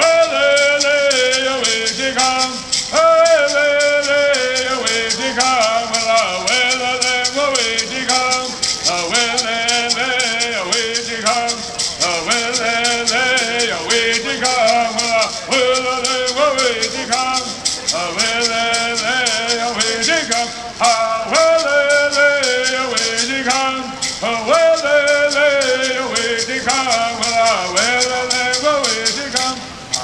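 Kumeyaay bird song: voices singing a melody in unison, accompanied by gourd rattles shaken in a steady rhythm.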